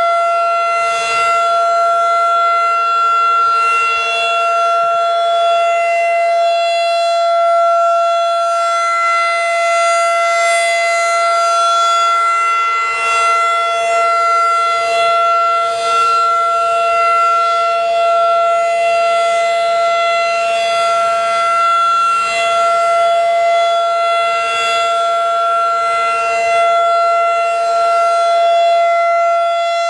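Federal Signal 2001-DC outdoor warning siren wailing at a steady held pitch during a weekly tornado siren test. Its sound swells and fades about every three seconds as the siren rotates.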